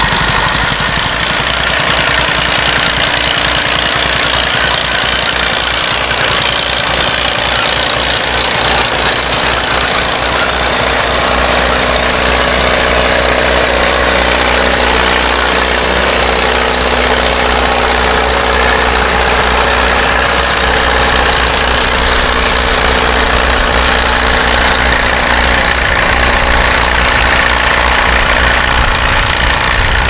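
Vintage farm tractor engine running steadily, with a low rhythmic pulsing.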